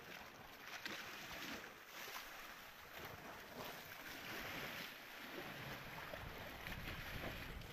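Faint noise of sea water and wind on the microphone, with a stronger spell of low wind rumble near the end.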